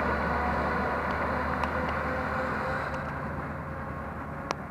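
Suburban electric multiple-unit train running away along the track, its rumble and wheel noise fading steadily, with a sharp click near the end.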